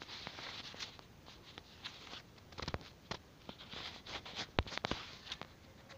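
Scattered fingertip taps and clicks on a smartphone touchscreen, with soft rustling between them. The taps come in small clusters, the loudest a little past halfway.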